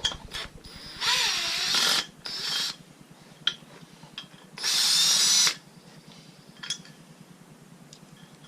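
Handheld electric power tool, drill or driver type, run in three short bursts of about a second, half a second and a second, its motor whine wavering in pitch as it spins fasteners off. A few light metal clicks come between the bursts.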